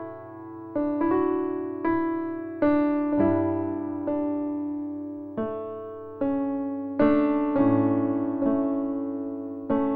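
Background music: slow, gentle piano chords struck about once a second, each left to fade.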